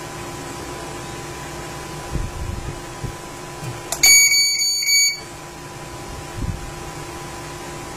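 A single electronic beep from the home alarm panel: one steady high tone lasting about a second, starting about four seconds in. Around it, a steady hiss and electrical hum, with a few soft bumps.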